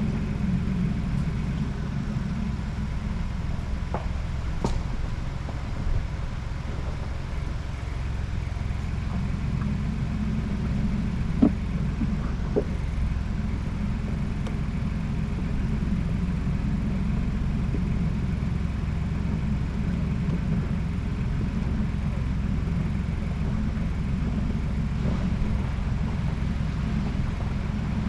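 Ford Bronco driving: a steady low rumble of engine and road noise, with a few brief knocks or rattles, the loudest a little before halfway.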